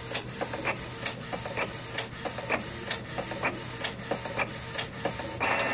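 Canon PIXMA iP2770 inkjet printer printing a photo: the print-head carriage shuttles back and forth over a steady high motor whir, with a sharp click about once a second and fainter clicks between. Shortly before the end a louder rushing whir sets in.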